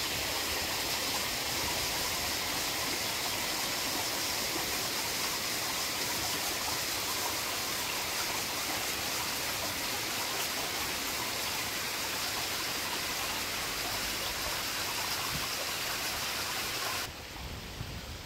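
Steady rushing of shallow water along a stony seashore, an even hiss with no distinct wave breaks. About a second before the end it changes abruptly to a quieter sound with a low wind rumble on the microphone.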